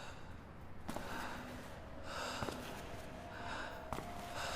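Faint, slow breathing: a soft breath roughly every second, with a few small clicks.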